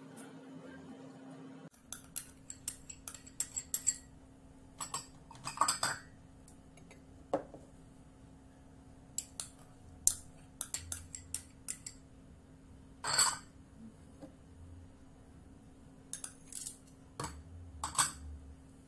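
Small glass bowls clinking and tapping against a stainless steel mixer-grinder jar and against each other as ingredients are tipped in and the empty bowls are stacked on a plate: a scattered string of short clinks and knocks.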